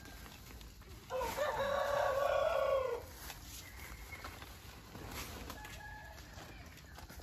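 A rooster crows once, a loud call of about two seconds starting about a second in, followed by a fainter short call near the end.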